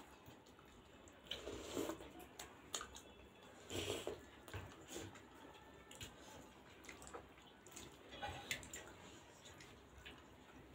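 Faint wet chewing and lip-smacking of people eating juicy steamed pork momos dipped in achar sauce: scattered small clicks with a few louder smacks.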